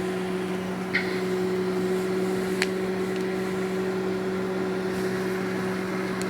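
Microwave oven running, a steady low hum, with two faint ticks about one second and two and a half seconds in.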